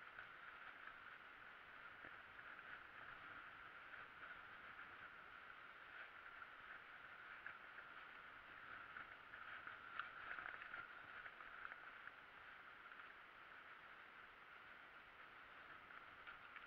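Faint, muffled rolling noise of a mountain bike on a grassy dirt track, with many small clicks and rattles and a sharper knock about ten seconds in.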